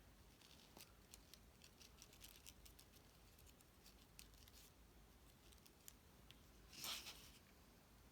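Faint handling of cut cardstock: light paper clicks and rustles as small paper flower pieces are slid into a pop-up card, with one louder brief rustle about seven seconds in.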